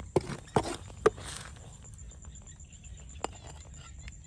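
Spatula scraping and knocking against a wide pan of thick sauce while it is stirred, with several sharp clicks in the first second and a half, then quieter with a single knock later.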